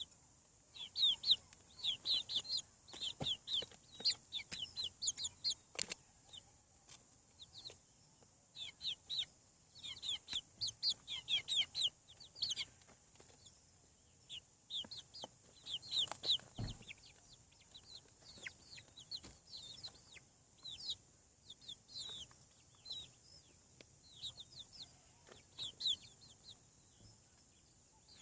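Young chickens peeping: many short, high, falling peeps coming in busy clusters, with a few sharp knocks among them.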